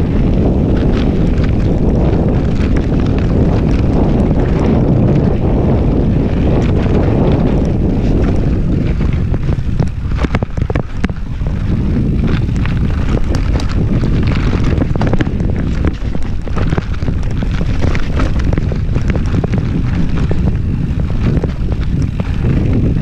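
Wind buffeting the microphone of a camera riding on a moving mountain bike, with sharp clattering knocks from the bike over rough trail. The wind eases briefly about ten seconds in, and the clatter stands out more there.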